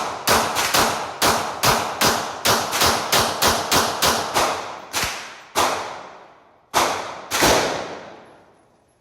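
Rapid string of gunshots, about seventeen, fired two to three a second with each shot ringing out in a long echo; the pace slows toward the end, with the last two shots well apart.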